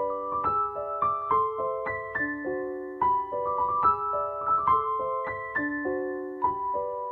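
Background music: a gentle piano melody of struck notes, several a second, each ringing and fading.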